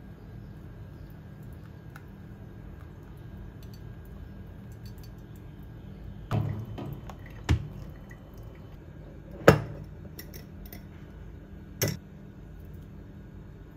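Faint coffee dripping through a ceramic pour-over dripper into a glass server over a steady low hum. Then several sharp knocks and clinks of glass and ceramic kitchenware, the loudest about two-thirds of the way through.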